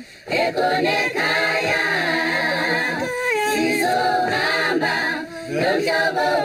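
A choir singing a cappella, several voices together, with a brief break just at the start.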